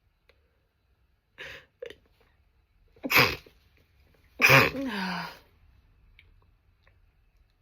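A woman sneezing twice, about a second and a half apart, after two short catching breaths; the second sneeze is longer and ends with her voice sliding down.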